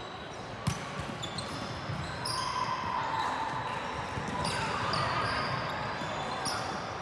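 Indoor volleyball rally in a large hardwood-floored gym: a sharp smack of the ball being hit about two-thirds of a second in, many short sneaker squeaks on the court floor, and players' voices calling in the background.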